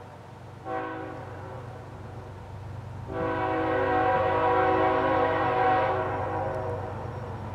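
Air horn of an approaching GE ES44AC diesel locomotive, sounding for a grade crossing: a first blast starting about a second in, then a longer, louder blast from about three seconds in that stops near the six-second mark. A steady low locomotive engine rumble runs underneath.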